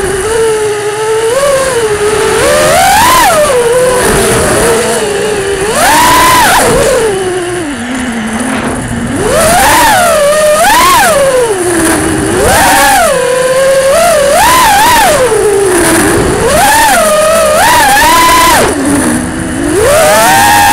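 Brushless motors and propellers of an FPV quadcopter, heard from its onboard camera, whining with a pitch that rises and falls sharply and repeatedly as the throttle is punched and cut through flips and dives. A faint steady high-pitched tone runs underneath.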